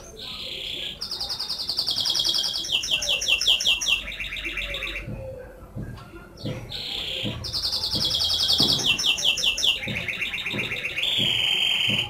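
Canary singing: two long phrases of fast, rolling trills with a short pause between them. The second phrase ends in a steady held trill.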